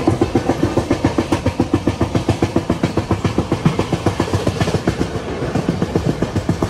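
Passenger train's wheels clattering fast and evenly over the rails, several beats a second, as the train runs at high speed. Wind rushes over the microphone throughout.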